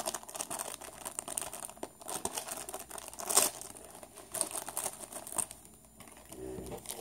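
Small plastic toy blind bag crinkling as it is opened by hand, in a run of irregular crackles that are loudest around the middle.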